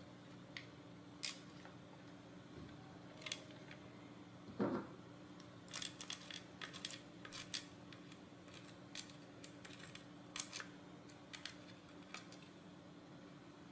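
Faint, irregular clicks and taps of a screwdriver and a small bolt against a robot-car chassis as the bolt is fitted into a mounting hole. There is a duller knock about four and a half seconds in, and the clicks come thickest from about six to eleven seconds, over a low steady hum.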